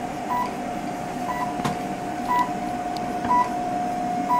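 An Aspen Class IV therapy laser running while it fires: a steady tone with a short, higher beep about once a second, the unit's audible signal that the laser is emitting.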